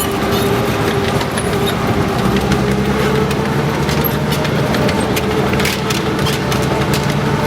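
Maybach HL 120 V12 petrol engine of a Panzer IV tank running steadily, with scattered clicks and knocks over it.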